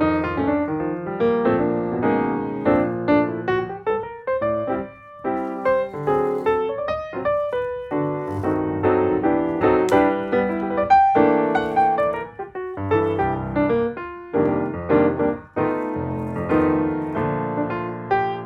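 Background piano music: a melody of quick notes over chords, at a steady level.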